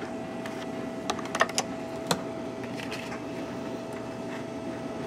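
A few small sharp clicks about one to two seconds in, from handling the CNC's LCD controller, over a steady faint hum from the fan-cooled controller electronics. The router itself is not running.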